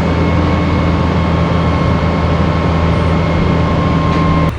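Crane truck's engine running steadily under load while hoisting a rooftop air-conditioning unit, a deep hum with a faint steady whine above it. It cuts off abruptly near the end.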